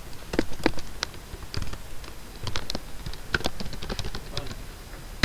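Typing on a computer keyboard: a run of irregularly spaced keystrokes.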